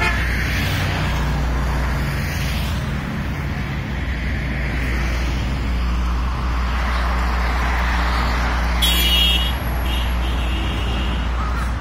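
Steady road traffic on a highway: cars and trucks passing with a continuous engine and tyre rumble. A vehicle horn toots briefly about nine seconds in.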